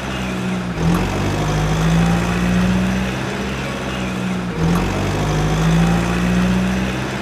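Truck engine idling, a steady low hum that breaks off and starts again about a second in and again midway, like a looped engine recording.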